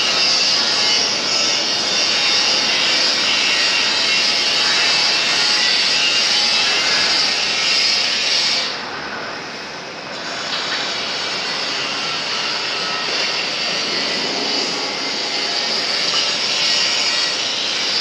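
Automatic straight-seam welding machine running along a steel pipe's longitudinal seam: a loud, steady hiss that drops and dulls briefly about nine seconds in, then comes back.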